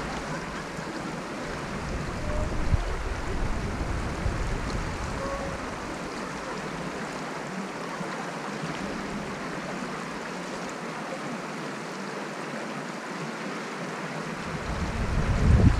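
Shallow stream rushing steadily over stones, recorded close to the water's surface. Wind buffets the microphone with a low rumble at the start and again, louder, near the end.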